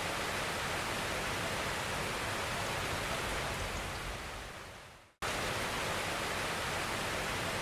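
A steady rushing hiss like rain or running water, which fades away about four seconds in, drops out briefly, and cuts back in suddenly at full level.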